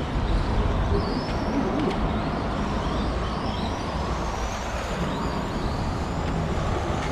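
Electric RC cars racing, their motors whining faintly with rising and falling pitch as they speed up and slow down, over a steady low rumble of background noise.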